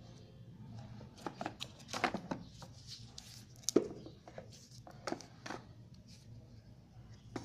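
Handling noise as a smartphone is lifted out of its cardboard box: a run of light scrapes, taps and clicks of cardboard and plastic wrap, the sharpest knock a little under four seconds in.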